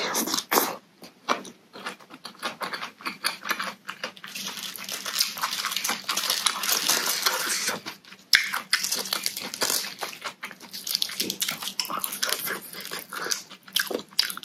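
Close-up chewing and crunching of a shredded papaya and carrot salad, with many quick wet, crisp mouth clicks. There is one sharp crunch about eight seconds in.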